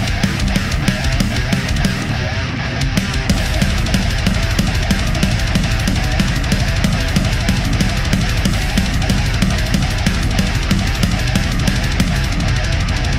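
Heavy rock music with a steady drum beat and electric guitar.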